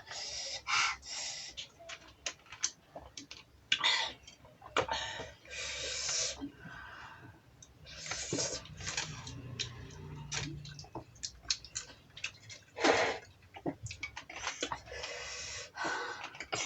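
People eating: irregular chewing and mouth noises, with small clicks.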